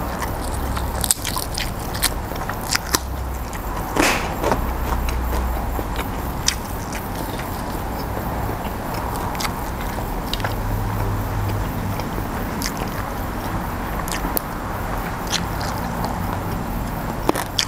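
A person chewing and crunching raw vegetables close to a clip-on microphone, with scattered small clicks and crackles over a steady hiss.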